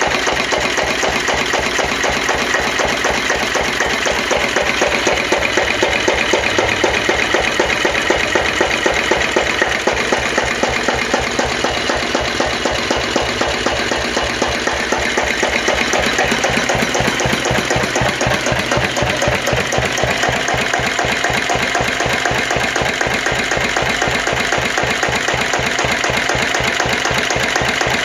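Russell Newbery RD1 single-cylinder stationary diesel engine running steadily, with a fast, even beat.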